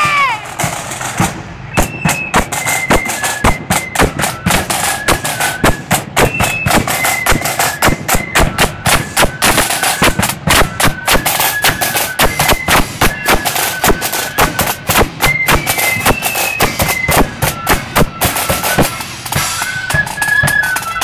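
Marching flute band playing: flutes carry a high melody over fast, dense side-drum strokes, bass drum and clashing cymbals. The drums play alone at first and the flutes come in about two seconds in.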